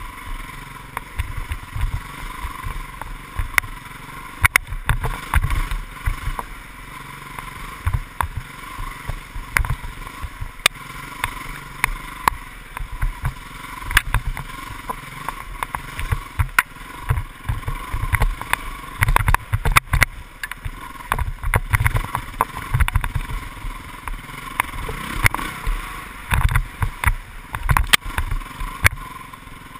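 Dirt bike engine running under way on a rough trail, heard from a helmet-mounted camera, with frequent irregular knocks and thumps from the ride over bumpy ground.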